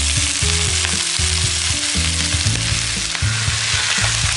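Chopped cauliflower leaves sizzling in hot mustard oil in a kadai, a loud, steady hiss of frying.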